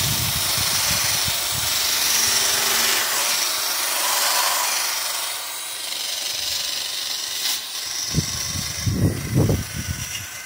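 Electric drill spinning a wire wheel against the rusty steel of old pliers, scrubbing the rust off with a steady whirring hiss. A few low thumps come about eight seconds in.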